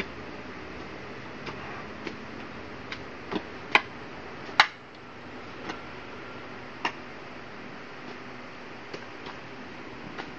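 Hoes chopping and scraping into a damp compost heap of sheep manure, rice husk and coco peat: irregular sharp knocks, the two loudest a little under four and five seconds in.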